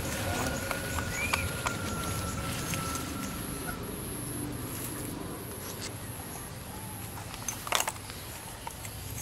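Hand-gathering eggs from a nest of dry fibre: rustling and light clicks as the eggs are picked up, then a sharper clack of eggs knocking together about three-quarters of the way through. Underneath is an outdoor background with a faint steady high-pitched tone, and a held whistle-like tone in the first few seconds.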